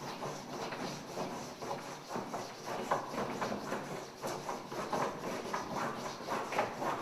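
White chalk scraping and knocking across a blackboard in vigorous repeated strokes, two or three a second.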